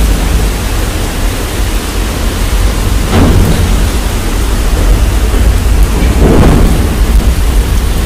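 Loud steady rushing and rumbling of wind buffeting a phone's microphone on a moving train, mixed with monsoon rain and falling water. Two brief swells come about three and six seconds in.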